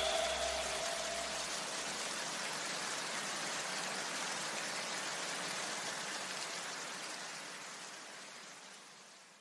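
A steady, even hiss that fades out gradually and is nearly gone by the end, with a faint low rumble in the first two seconds.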